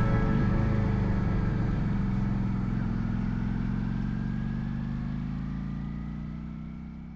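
Honda Shadow VLX 400's V-twin engine running under way, its pitch rising slowly as it picks up speed. The sound fades out smoothly toward the end.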